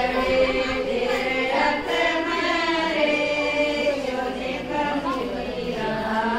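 A group of women singing a Haryanvi folk song together in chorus, with long held, wavering notes.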